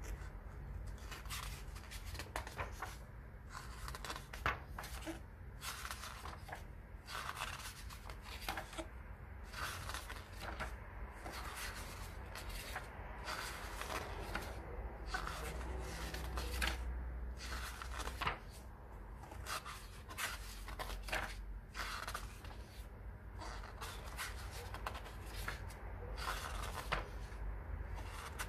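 Pages of a graphic novel being flipped one after another, a papery rustle and flick every second or so.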